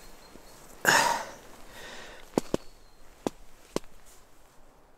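A man's sharp breath about a second in, then a few short, sharp clicks as he stirs and sits up in a camping hammock.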